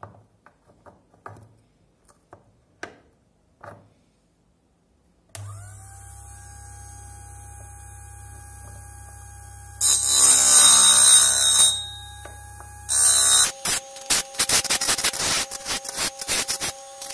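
Optimum GQ-D13 drill sharpener: a few light clicks as the drill holder is turned and seated. About five seconds in, the motor switches on and runs with a steady hum. Then the drill bit grinds loudly against the grinding wheel for about two seconds, and again in a quick series of short grinding bursts from about halfway on.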